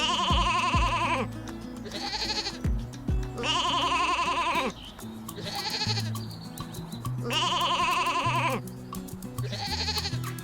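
Background music with a bass line and light ticking percussion, with long, quavering animal bleats about every three and a half seconds and shorter, higher calls between them.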